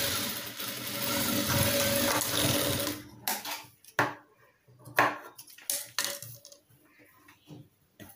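JACK F4 single-needle lockstitch industrial sewing machine running steadily, stitching, then stopping about three seconds in. A few sharp clicks and knocks follow as the work is taken off the machine.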